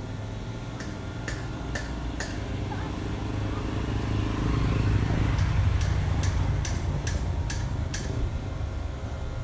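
Urban street ambience: a low engine rumble swelling toward the middle, like a vehicle passing, overlaid with two runs of sharp taps or knocks about two a second, four early on and seven more later.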